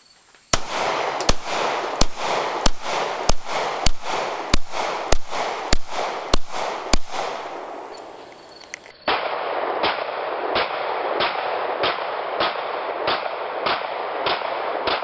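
Firearm shot in steady semi-automatic strings, about three shots every two seconds, each shot trailed by echo. Eleven shots in the first string; after a pause a second string starts about nine seconds in and runs on.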